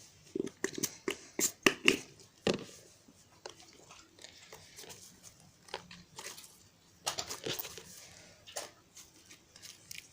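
A slime being worked and squished by hand, making irregular sticky clicks, pops and crackles in two busy spells with quieter handling between.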